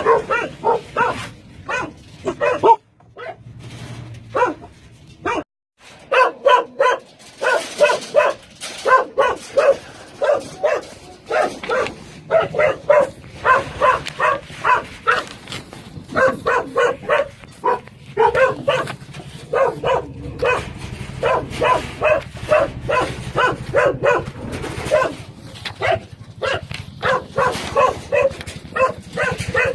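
Several dogs barking continuously, short repeated barks several a second, with a brief lull about five seconds in.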